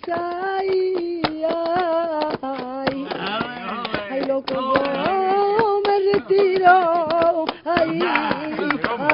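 A woman singing a flamenco song in long, wavering held notes, without clear words, over steady rhythmic handclaps (palmas).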